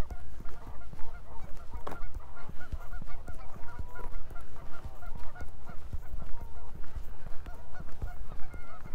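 A flock of geese honking, many short calls overlapping, with close footsteps underneath.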